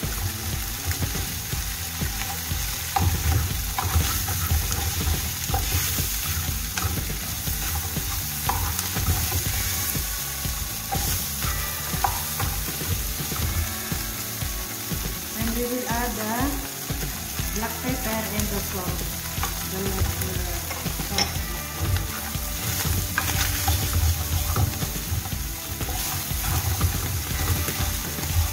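Tuna frying in a metal pan, sizzling steadily, while a wooden spatula stirs and scrapes it around the pan.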